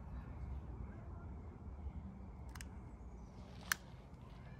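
Two sharp clicks of a long-nose butane utility lighter's igniter, a little over a second apart, the second louder, as it is worked at the kindling in a fire pit.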